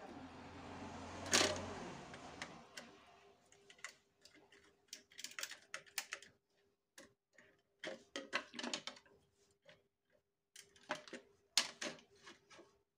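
Scattered clicks and taps of hands working on a plastic modular switch-and-socket board, with a screwdriver and pliers knocking against the plastic housing and its terminals in irregular clusters. It opens with a short rush of noise and one sharp click about a second and a half in.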